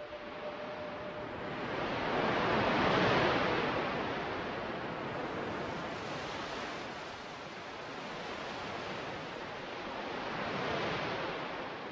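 Ocean surf: waves washing in as an even rush of noise, swelling to a peak about three seconds in and again near the end.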